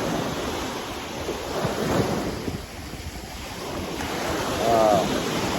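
Small waves breaking and washing up on a sandy beach, with wind buffeting the microphone. The surf swells about two seconds in and again near the end.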